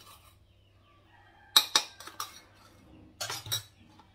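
Steel spoon and stainless-steel bowls clinking as powdered sugar is spooned out to be set aside. A quick run of about four clinks comes about halfway in, and another cluster of clinks near the end.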